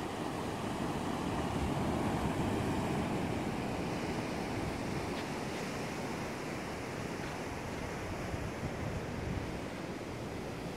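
Ocean surf washing onto a sandy beach, a steady wash that swells about two seconds in, with some wind rumbling on the microphone.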